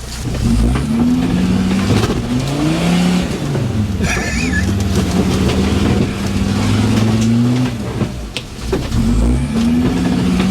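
Off-road 4x4's engine revving hard, its pitch climbing and falling back again and again as it works through the terrain, with a brief high squeak about four seconds in.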